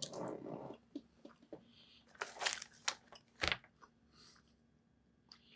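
A person eating Milk Duds candy: short crinkly, crunchy bursts from handling the candy and putting it in the mouth, loudest about two to three and a half seconds in, then fainter mouth sounds.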